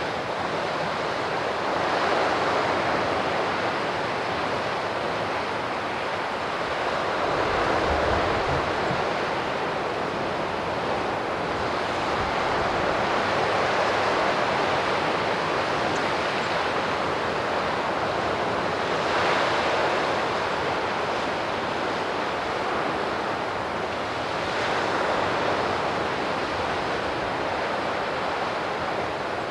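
Sea surf washing onto the shore, a continuous wash that swells about every five to six seconds as waves break.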